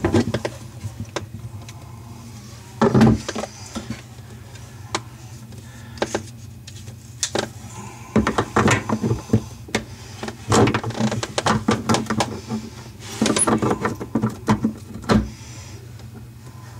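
Pliers clicking and scraping against the metal drain tailpiece and nuts of a bathroom sink's pop-up assembly as it is loosened, in short scattered bursts of knocks, over a steady low hum.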